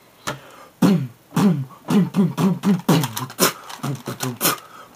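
Human beatboxing: a steady mouth-made beat of low kick-drum sounds alternating with sharp hi-hat and snare-like hisses, starting about a second in.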